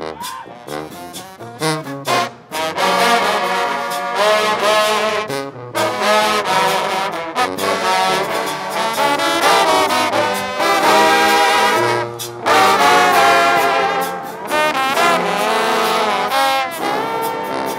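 A marching brass shout band led by a choir of trombones, with sousaphones, playing a gospel tune in loud, sustained phrases broken by short pauses.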